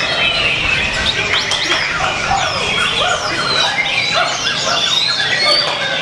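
White-rumped shama (murai batu) singing hard in contest form: a rapid, unbroken run of varied whistles and chirps that rise and fall in pitch. The song overlaps with other birds' calls.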